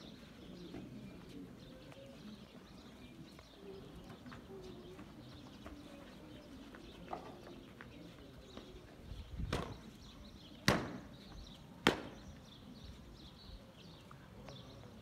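A whip lashing three times, about a second apart, in the second half; the last two are sharp cracks and the loudest sounds here. Under it is a faint, steady background haze.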